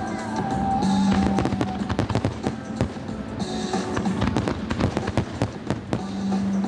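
Aerial fireworks going off, with many sharp bangs and crackles in quick succession. Music with long held notes plays underneath.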